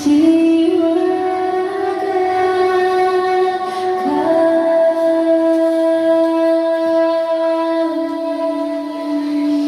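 Children's choir holding long sustained notes with music, the pitch stepping to a new note about four seconds in and again near eight seconds.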